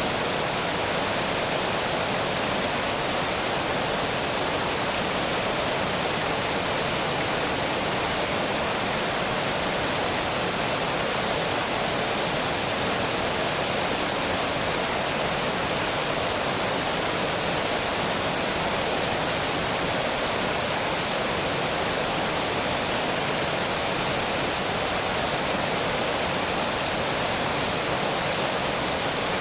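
Water pouring over a small dam, a steady, unbroken rushing roar.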